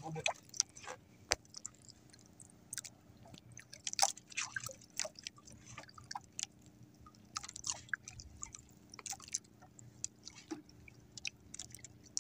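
Irregular light clicks, taps and small splashes: water lapping at a small outrigger boat while a hand fishing line is worked, over a faint steady low hum.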